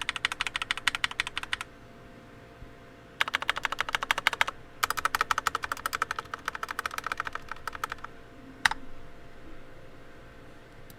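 Mechanical keyboard with stock, unlubed Akko CS Rose Red linear switches, typed fast in three runs of rapid keystrokes with short pauses between, then one louder single click near the end.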